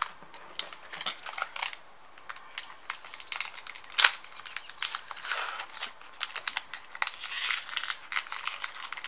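Foil wrapper of a Pokémon trading card booster pack being handled and torn open: irregular crinkling and crackling, with a sharp click about four seconds in.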